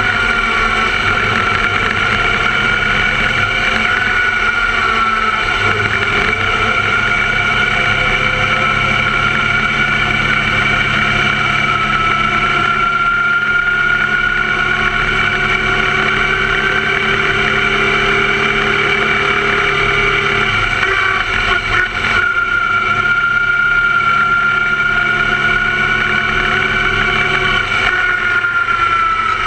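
Open-wheel formula race car's engine running at speed, heard from onboard, its pitch drifting gently up and down through the corners, with a brief dip about two-thirds of the way through.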